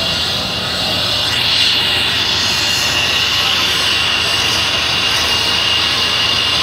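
Union Pacific 844 steam locomotive letting off a loud, steady hiss of steam with a high ringing tone in it, growing stronger about a second and a half in.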